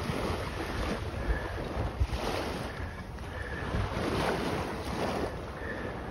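Wind buffeting the microphone over water lapping and slopping, in uneven surges about every second or so.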